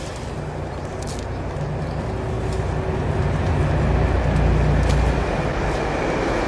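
A train approaching, its low rumble building louder and peaking about four to five seconds in, then holding steady as it draws level.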